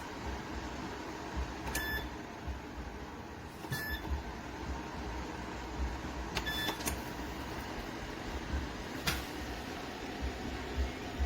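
Ceramic tower space heater running, its fan blowing with a steady hiss. A few short, high beeps come through every two to three seconds.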